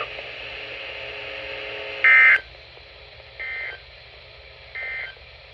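NOAA Weather Radio's Emergency Alert System end-of-message signal: three short bursts of screechy digital data tones about 1.4 seconds apart, the first much louder than the other two. They come over faint radio hiss, and they mark the end of the warning broadcast.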